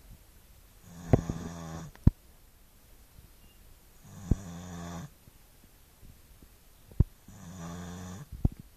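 Staffordshire bull terrier snoring: three long, rasping snores about three seconds apart, each with a sharp click-like snort.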